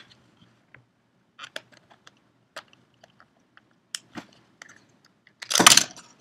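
Plastic clicks and rattles as a Canon 18-55 kit lens and a Canon T3i DSLR body are handled, their caps taken off and the lens fitted to the body, with a louder rasping scrape about five and a half seconds in.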